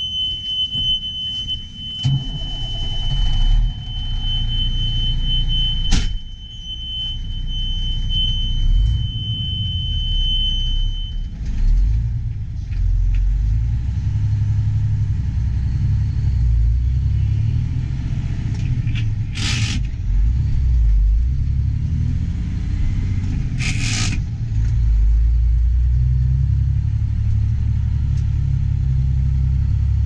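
Grain truck's diesel engine running, heard from inside the cab as a steady low rumble. For about the first eleven seconds a steady high beeping warning tone sounds, with a sharp knock about six seconds in, and two short hisses come later, near twenty and twenty-four seconds.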